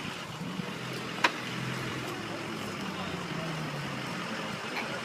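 An off-road vehicle's engine running steadily, with one sharp knock a little over a second in.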